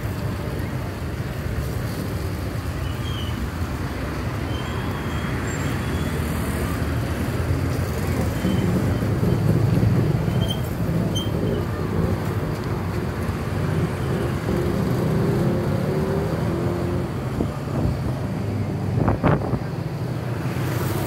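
Street traffic ambience: a steady rumble of passing cars and motorbikes that swells about halfway through as a vehicle goes by. Near the end comes one brief sharp knock.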